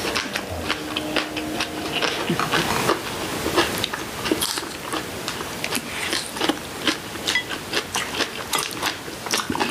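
Close-up chewing and crunching of seasoned Korean greens: many small crisp crunches in quick, uneven succession as two people eat.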